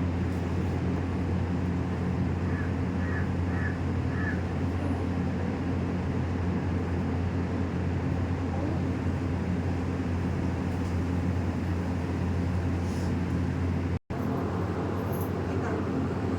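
Steady low mechanical hum of a running motor or machine, cutting out for an instant near the end.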